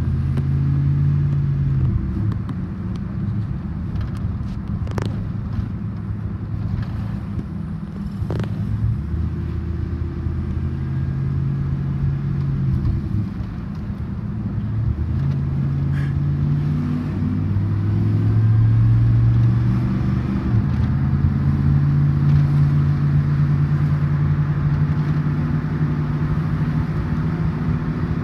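Car engine and tyre noise heard from inside the cabin while driving on a wet road. The engine's hum shifts up and down in pitch every few seconds as the car speeds up and slows, with two sharp clicks a few seconds apart.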